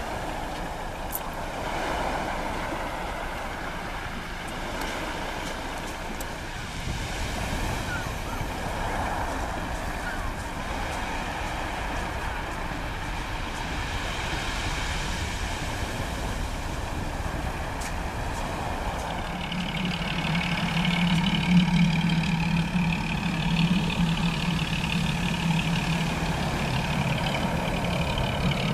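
A heavy engine running steadily. About twenty seconds in it grows louder, with a strong low hum.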